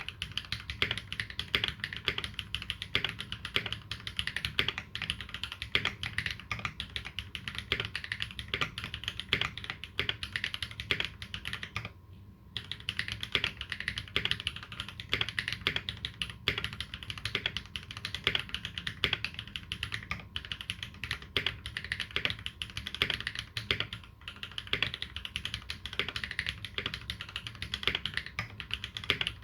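Continuous fast typing on a Dolinger RE 2020 custom mechanical keyboard with lubed Holy Panda tactile switches and GMK keycaps, a dense run of keystrokes with a brief pause about twelve seconds in.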